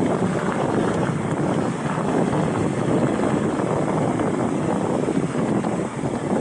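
Steady rushing noise from a mountain bike in motion on a trail: wind buffeting the camera microphone mixed with tyres rolling over dirt, with an even level throughout.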